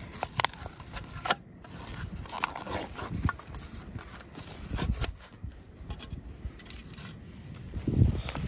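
Foil lid being peeled off an aluminium ready-meal tray, crinkling and scraping in short bursts, with wind rumbling on the microphone.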